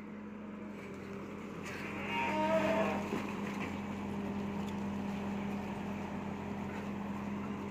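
Tracked hydraulic excavator's engine running with a steady hum. About two seconds in it swells into a louder, higher tone for about a second, then settles back.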